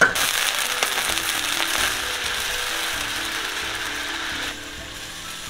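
Small silverfish deep-frying in hot oil in a wok: a dense crackling sizzle that drops to a softer sizzle about four and a half seconds in.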